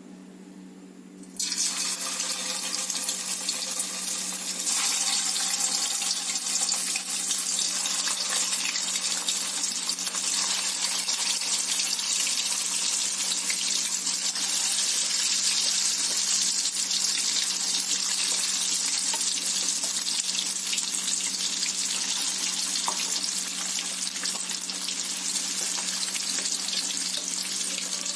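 Marinated boneless fish pieces deep-frying in hot oil in a kadai: a sizzle starts suddenly about a second and a half in as the fish goes into the oil, gets louder about five seconds in, and runs on as a steady hiss.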